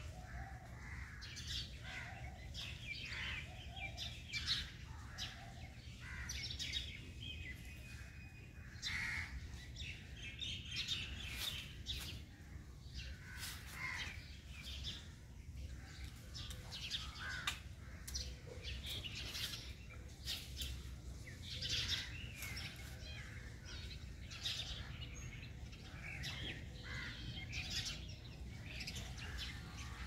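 Several small birds chirping and calling without pause, many short overlapping calls, over a low steady rumble.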